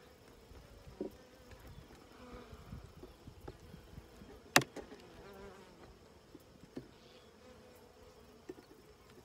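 Honey bees buzzing steadily around an open hive, with scattered clicks and scrapes of a metal hive tool prying at the wooden frames and one sharp knock about halfway through.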